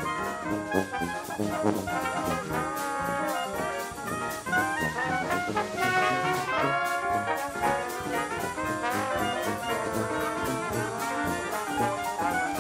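Background music: a jazzy tune led by brass instruments, with a steady beat.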